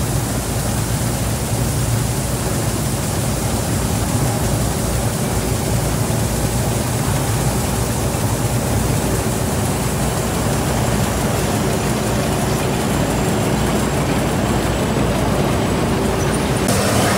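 Combine harvester running steadily at work, a constant loud engine drone.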